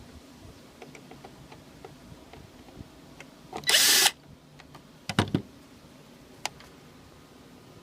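A power drill whirs briefly, about half a second, as a screw is backed out of the air conditioner's shroud, then a few sharp clicks and knocks follow.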